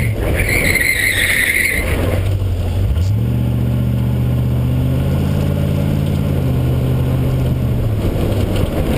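V8-swapped Honda S2000's engine running hard through an autocross course, with a high tyre squeal during the first two seconds as the car turns. The engine pitch rises about three seconds in, then holds steady until it drops near the end.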